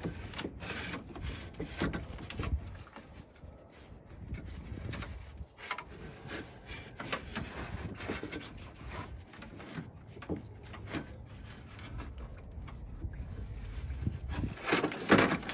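Scattered clicks, knocks and rubbing of car parts being handled and worked loose, with a louder cluster of knocks near the end.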